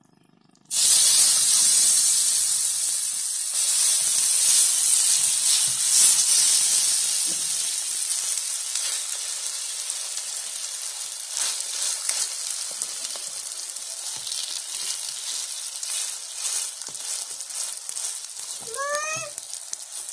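Rice-flour batter sizzling in hot oil in a very hot pan (tawa). It starts suddenly about a second in as the batter goes in, is loudest at first, and slowly dies down while the batter is spread out.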